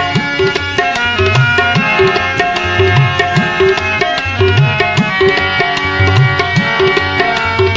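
Instrumental break of a Punjabi-Saraiki folk song: tabla keeps a steady rhythm, some of its bass strokes gliding up in pitch, under a held melodic instrumental line.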